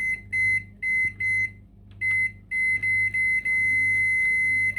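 Microwave oven keypad beeping as the cooking time is set: a run of about eight short beeps at the same pitch, then one long beep lasting about two seconds near the end, over a low steady hum.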